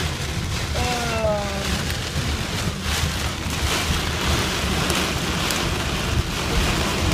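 Heavy wind-driven rain pelting a car, a dense steady hiss over a low rumble, with a few louder gusts of rain in the second half.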